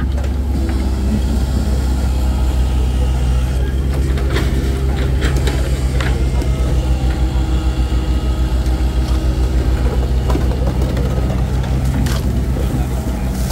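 An engine running steadily close by, a low, even hum with a fast pulse to it.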